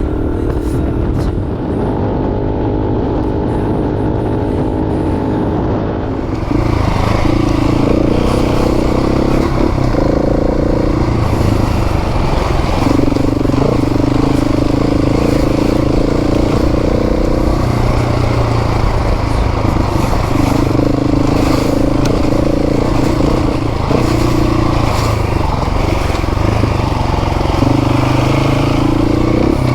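Motorcycle engine running under way, steady at first; from about six seconds in it gets louder with a rushing noise, and the engine note rises and falls in steps with throttle and gear changes.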